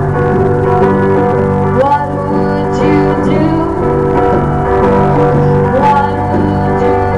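Live band music: a woman singing with electric guitar, backed by congas, played through a PA.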